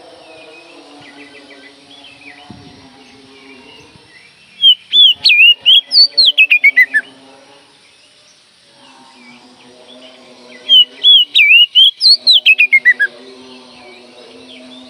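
Oriental magpie-robin (kacer) singing: two loud phrases of rapid whistled notes, each ending in notes that slide down in pitch, about six seconds apart.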